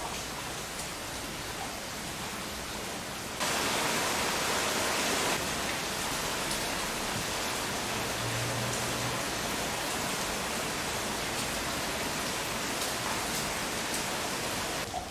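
Heavy typhoon rain pouring down steadily as a dense hiss, growing louder about three seconds in.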